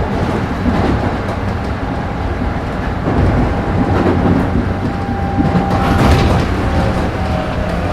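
Running sound of a Tokyu 9000 series electric train: a steady electric whine from its GTO-thyristor VVVF inverter and traction motors over the rumble of wheels on rail, with a few clacks of wheels over rail joints. The whine shifts to a lower pitch near the end.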